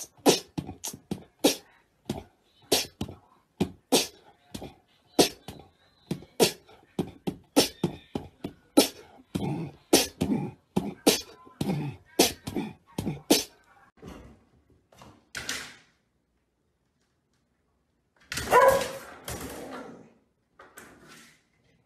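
A run of sharp knocks, irregular, one to three a second, for about fourteen seconds. After a short pause, a dog vocalises briefly near the end.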